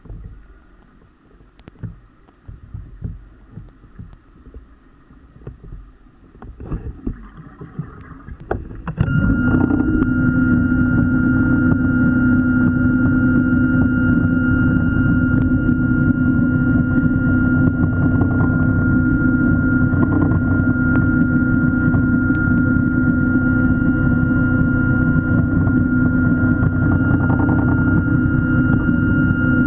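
An electric diver propulsion vehicle (underwater scooter) heard underwater: after scattered faint knocks, its motor starts about nine seconds in and runs loud and steady, a deep hum with a high whine over it.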